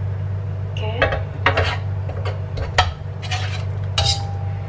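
Metal slotted ladle and spatula clinking and scraping against a stainless steel wok of sauce, about five knocks, the last ringing briefly, over a steady low hum.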